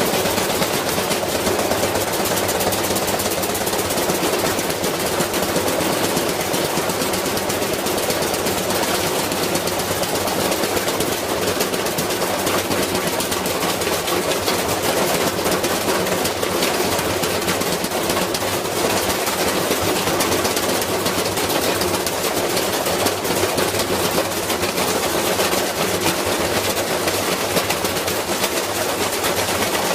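Washing machine spinning with a brick loose in the drum, the brick banging against the drum in a continuous rapid rattle that never lets up.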